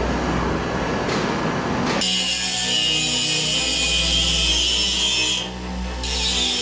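A dense, steady machine rumble, then about two seconds in a harsh, high scraping hiss of a power tool abrading cast iron. The hiss breaks off briefly near the end and starts again.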